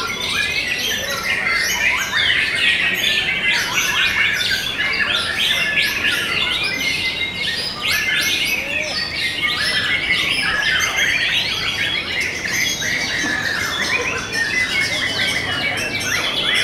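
Caged white-rumped shamas (murai batu) singing over one another in a dense, unbroken chorus of fast whistles, rising and falling sweeps and trills.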